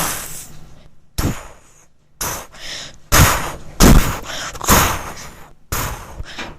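Fireworks going off: six sharp bangs about a second apart, each trailing off briefly.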